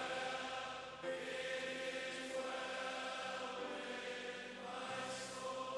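Slow hymn-like music of long held chords, changing every second or two, with a chanted, choral quality.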